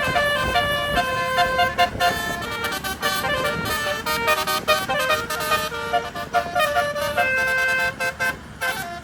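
A bus's multi-note telolet horn with 18 trumpets and 18 notes, playing a quick melody of short and held notes. It dips briefly near the end.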